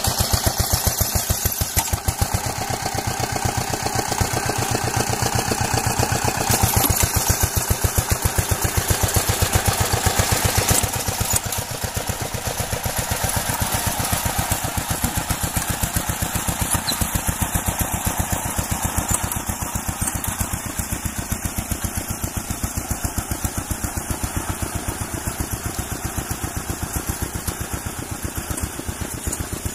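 An engine running steadily with an even, rapid pulsing beat; it drops a little in level about eleven seconds in.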